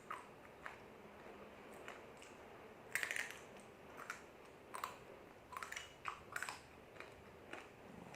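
Crunchy fried mie lidi snack sticks being bitten and chewed close to the microphone: irregular crisp crunches, loudest in a burst about three seconds in.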